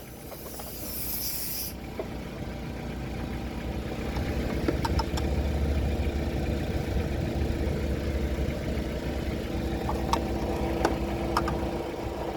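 Car engine idling: a low, steady hum that swells a couple of seconds in and eases near the end, with a few light clicks.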